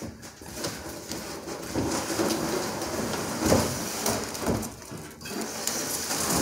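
Cardboard shipping box and packing material rustling and scraping as a metal replacement gas tank is pulled out of it, with a couple of knocks midway.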